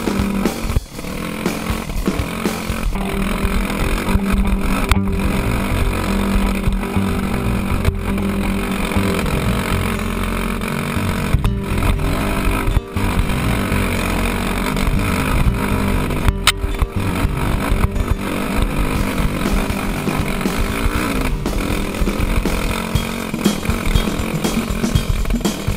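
Dirt bike engine running under load on a rocky hill climb, heard close up from on board, its pitch shifting as the throttle changes.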